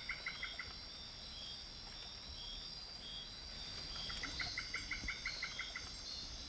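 Night-time tropical forest animal chorus: a steady high-pitched insect chirring runs throughout. Near the start, and again about four seconds in, a quick run of about ten evenly spaced chirps comes from another calling animal.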